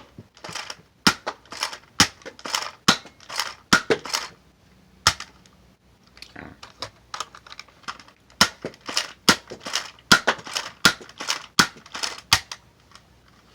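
Nerf blaster being worked over and over: a long run of sharp plastic clacks and pops, about two or three a second, with a pause about five seconds in.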